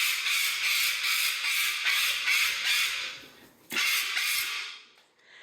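Pet parrot screaming: one long harsh scream lasting about three seconds, then a shorter one about a second later.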